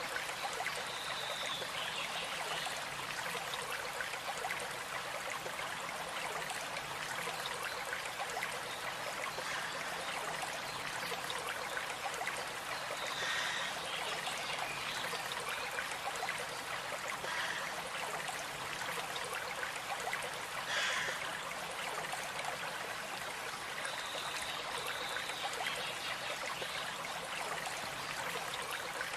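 Stream flowing steadily, a constant rush of water, with a few brief bird calls now and then.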